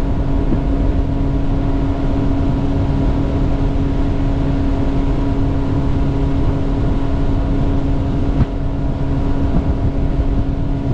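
Bass boat's outboard motor running at steady high speed, a constant engine drone over the rush of water and wind from the hull and wake.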